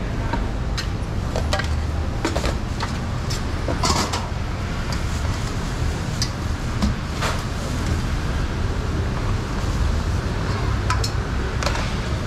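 Small kitchen knife cutting pineapple on a plastic cutting board: irregular sharp clicks and knocks, a dozen or so, over a steady low rumble.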